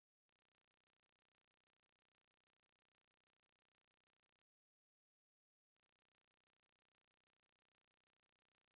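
Silence: the soundtrack drops out completely, with no audible sound at all.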